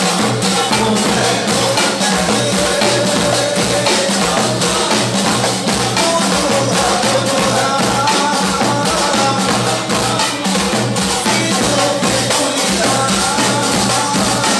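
Moroccan Aissawa ensemble playing: a dense, driving beat of frame drums and hand percussion with a wavering melody over it.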